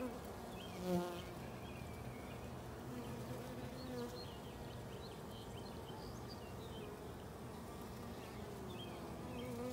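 Honey bees buzzing on and around an open brood frame: a steady hum, with individual bees' buzzes wavering up and down in pitch as they fly close past, one passing louder about a second in.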